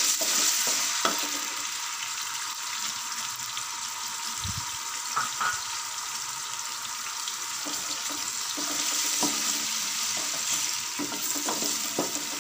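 Garlic and ginger paste sizzling as it fries in hot oil in an aluminium pressure cooker, loudest at first and then settling to a steady sizzle. A wooden spoon stirs it, knocking against the pot now and then.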